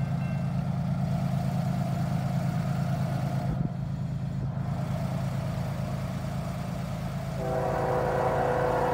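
Railroad crossing bell ringing for a moment and then stopping, over a steady low rumble. About seven seconds in, an approaching locomotive's multi-tone air horn starts blowing and holds.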